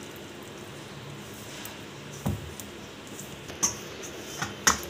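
A hand kneading soft flour dough in a stainless steel bowl: quiet squishing and rubbing, with a few short knocks against the bowl, twice near the end.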